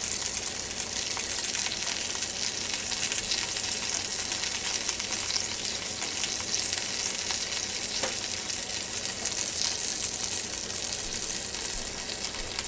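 Breaded chicken thighs sizzling in the hot air-fryer basket of a Ninja Foodi with the lid open, a steady fine crackle.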